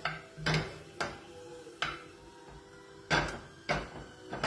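Wooden spoon knocking and scraping against a metal frying pan while stirring, about seven sharp knocks at uneven intervals.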